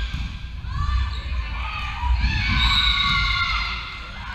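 Female volleyball players shouting and calling to each other on court, loudest about two to three seconds in, over low thuds of feet and ball on the wooden floor of a reverberant sports hall.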